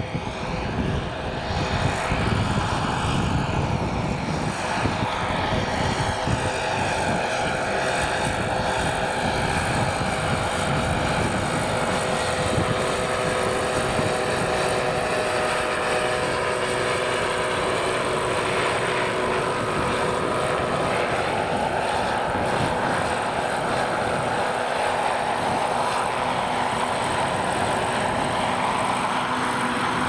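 Turbine-powered scale model EC-145 helicopter with a Jakadowski Pro X turbine flying in, hovering and setting down: a steady turbine whine over the beat of the rotor blades. The rotor chop is heaviest in the first several seconds and eases later, while the whine runs on with its rotor still turning.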